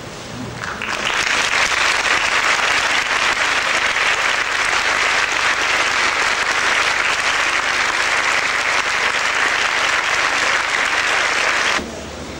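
Large audience applauding: the clapping swells in about a second in, holds steady and dense, and cuts off suddenly near the end.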